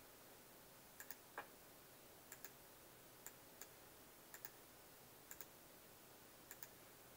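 Faint computer mouse clicks over low room hiss: about a dozen short, sharp clicks, mostly in pairs a split second apart, roughly one pair a second.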